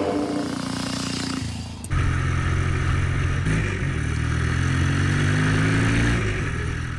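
Motorcycle engine running under throttle. After a short break, a second stretch where the engine pulls steadily, its pitch slowly rising as the bike accelerates.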